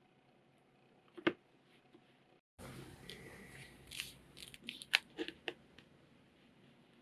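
A single sharp click of a hand tool on leather just over a second in, then paper rustling and a run of light taps and clicks as a paper pattern is pressed down and a metal straightedge is set on it on a cutting mat.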